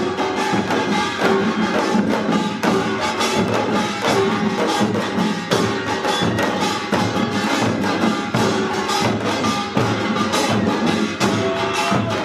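Pungmul percussion ensemble playing pangut: many barrel drums (buk) and hourglass drums (janggu) beaten together in a fast, dense, unbroken rhythm.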